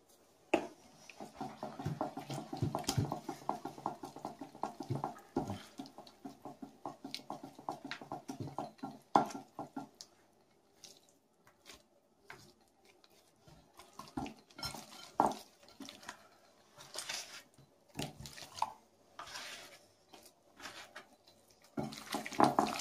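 Gloved hand mixing an oily spice marinade in a glass bowl: quick wet strokes for about ten seconds, then scattered wet slaps and clicks as chicken pieces go into the bowl, and squelching near the end as both hands work the chicken through the marinade.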